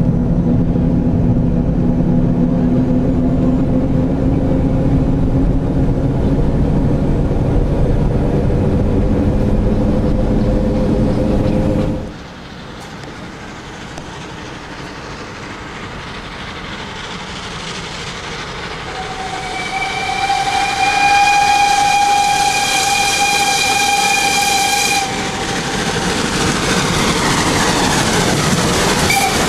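Carriages of a metre-gauge steam train rolling past close by with a steady low rumble. Then a 1909 steam locomotive approaching gives one long whistle of about six seconds, and its running noise grows as it nears.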